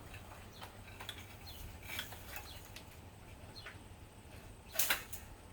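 Stainless steel braided hose sleeve scraping and rustling as it is worked along the rubber hose, with scattered light metallic clicks and one louder scrape near the end.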